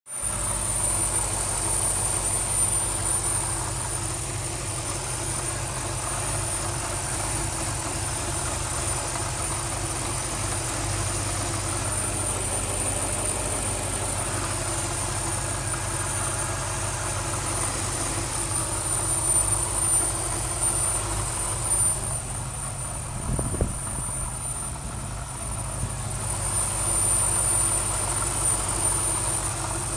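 BMW X5 E53's 4.4-litre V8 idling, with a steady high-pitched whistle from the engine bay over the low engine hum; the whistle swells and fades in strength. The whistle persists despite a brand new alternator and belt.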